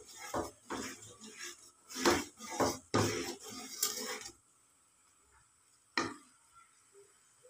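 Steel spoon knocking and scraping against a metal pot while stirring thickening kadhi, a quick run of clinks for about four seconds. Then it stops, with one more knock about six seconds in.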